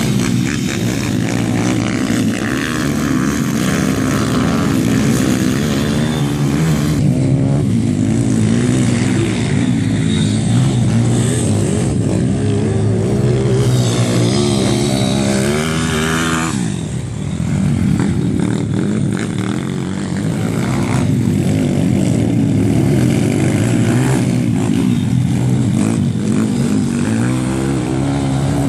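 Several pit bike engines, 150–160 cc single-cylinder four-strokes, racing on a dirt track. Their overlapping engine notes rev up and down constantly as the riders accelerate and back off, easing briefly about two-thirds of the way through before picking up again.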